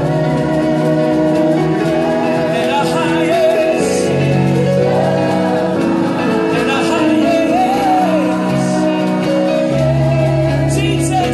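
Live gospel worship music: a man leads the singing on a microphone over held instrumental chords that change every few seconds, with the group singing along.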